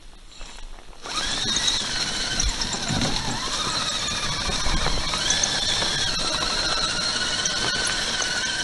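RC crawler truck driving on RC4WD Evo Predator tracks, its electric motor, gears and tracks giving a steady high-pitched whine and squeal that starts about a second in and wavers a little in pitch as it goes.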